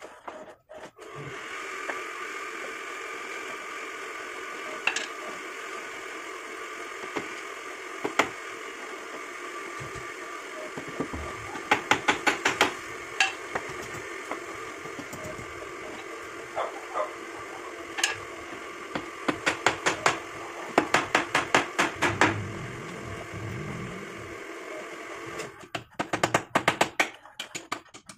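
Hammer driving nails into a pine-board frame in quick runs of light blows, about seven a second, with a few single knocks between. A steady hum sounds underneath until near the end.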